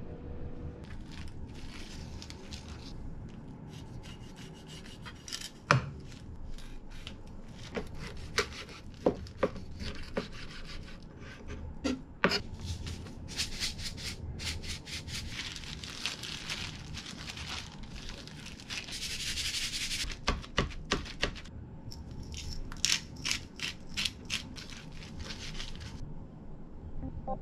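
Kitchen knife cutting mackerel fillets into pieces on a plastic cutting board: many sharp taps of the blade on the board, mixed with rubbing and rustling as gloved hands handle the fish.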